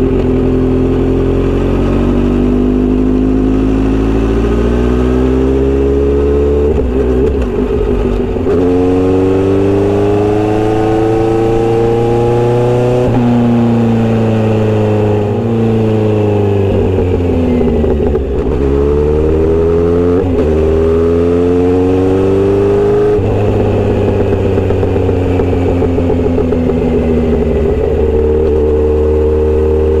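Kawasaki Z900RS inline-four running through a Misty Kintaro short aftermarket exhaust as the bike is ridden. The engine note climbs and drops in pitch several times, with a few sudden breaks where the rider changes gear.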